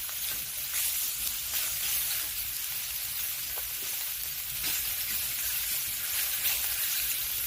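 Pork belly sizzling steadily on a hot, oiled cast-iron cauldron-lid griddle, a constant frying hiss with small crackles.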